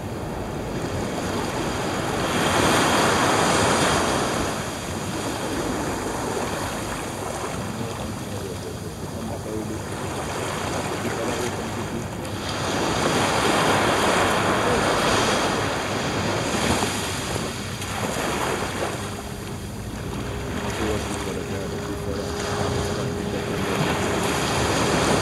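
Small waves washing up onto a sandy beach, the surf swelling louder and easing off in slow surges, with wind on the microphone. A faint steady hum comes in over the last few seconds.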